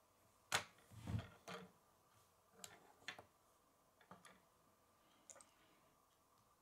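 Plastic Lego pieces clicking and knocking as they are handled and pressed together: a few separate sharp clicks, the loudest about half a second in, with a duller knock around a second in.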